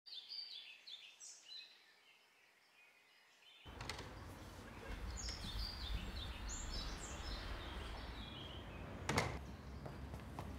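Small birds chirping and singing in short, repeated high calls, over an outdoor background hum with a low rumble that comes in about a third of the way through. One sharp knock sounds near the end.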